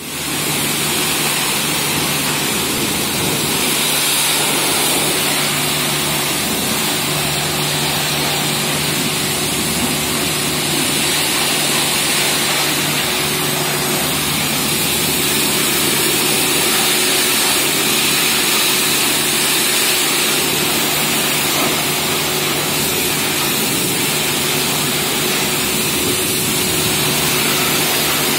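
Kärcher HD 9/20 three-phase high-pressure washer running steadily: its electric motor and crankshaft piston pump hum under the hiss of the water jet spraying onto plastic trays.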